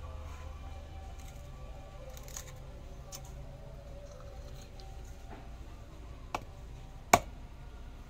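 A hand-forged leaf-spring-steel mini machete working a young green coconut: a few light knocks and scrapes of the blade in the husk, then one sharp knock near the end as the blade is driven into the coconut.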